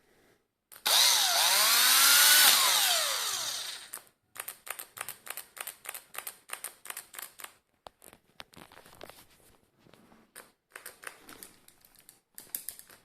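Faulty Teccpo electric drill: its motor runs in one loud burst about a second in, the pitch wavering up and down before it dies away. Then it cuts in and out in many short bursts, about three or four a second, and in scattered bursts near the end.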